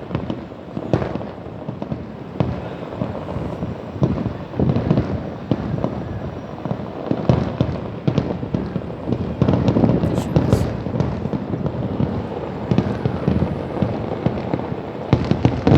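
Fireworks display: a steady run of bangs and crackles at irregular moments over a continuous low rumble, with no let-up.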